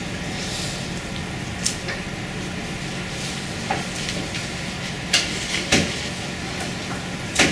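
Lecture-room background: a steady hum with a few scattered short clicks and knocks, the loudest two near the middle and near the end.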